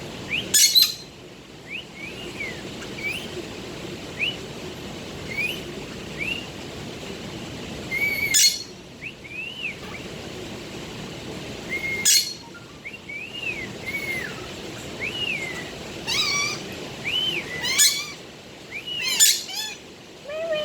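Pet parakeet chirping and warbling: a string of short rising-and-falling chirps, broken by loud, sharp calls every few seconds that come closer together near the end.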